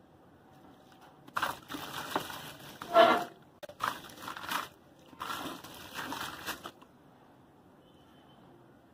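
A porous cement cylinder crumbling in the hands over a basin of water: gritty crunching in three spells, starting about a second and a half in, loudest around three seconds, and stopping before seven seconds.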